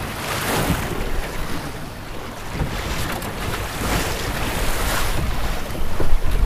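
Water rushing and splashing along the hull of a small wooden sailing skiff as it drives through chop, in repeated surges, with wind buffeting the microphone; the wind rumble is heaviest near the end.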